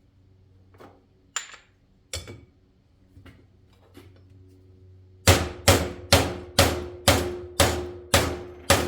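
Hammer driving new wheel bearing races into a hub: a few light taps, then from about five seconds in a steady run of hard blows, about two a second, each ringing like struck metal.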